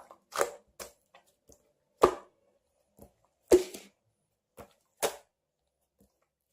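Clear blue slime being pressed and pulled by hand, making a handful of separate sticky pops and squelches with pauses between, the loudest about two and three and a half seconds in.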